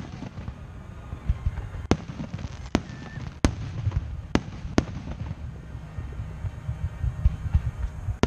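Aerial firework shells bursting over a continuous low rumble of booms, with about five sharp cracks coming in quick, irregular succession between about two and five seconds in.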